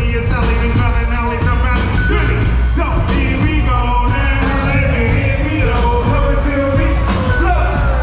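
Loud live band music with a vocalist over a steady drum beat and heavy bass, heard from among the audience.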